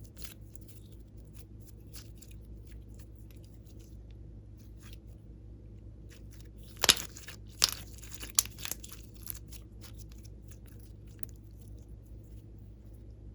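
Glossy slime being worked by hand: scattered small clicks and crackles, with a few louder pops about seven to nine seconds in.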